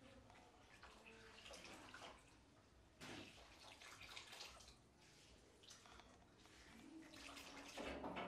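Faint water sloshing and dripping as a cloth is wrung out over a plastic basin and dunked back in. There is a sudden splash about three seconds in, and the loudest splash comes near the end.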